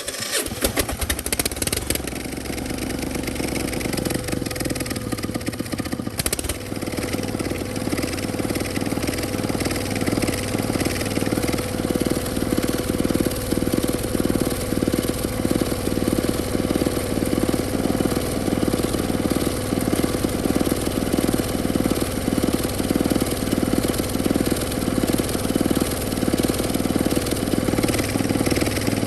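Small four-wheel farm tractor's single-cylinder diesel engine running steadily with a fast, even pulsing beat, its exhaust passing through a homemade plastic-jug silencer. It is noticeably quieter than with the bare exhaust.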